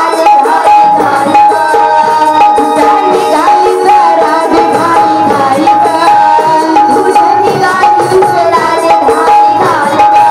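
A girl singing a Marathi gavlan folk song into a microphone, amplified, over music with steady hand-drum strokes.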